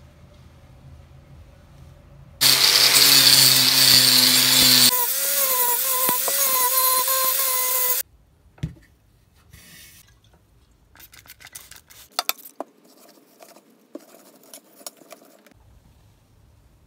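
A power tool runs loudly for about five and a half seconds, its pitch wavering slightly, then cuts off suddenly. Faint clicks and knocks of handling follow.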